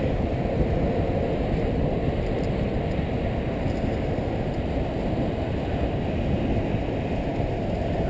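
Steady low rumble of wind buffeting a GoPro Hero2's microphone as the bicycle rides at speed, even throughout with no distinct knocks or tones.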